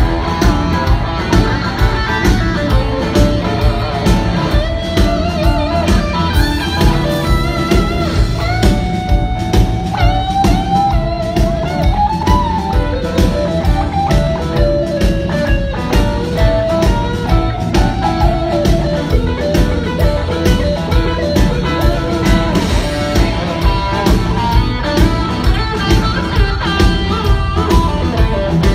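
Live blues-rock band playing: a lead electric guitar line with bent, sliding notes over a steady drum beat and bass.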